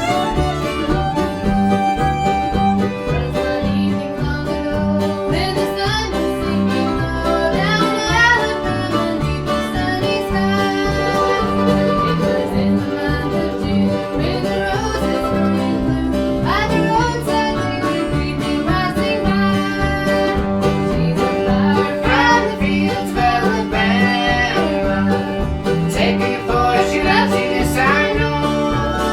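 Old-time string band playing a lively tune on fiddle, banjo and guitar over a steady bass beat.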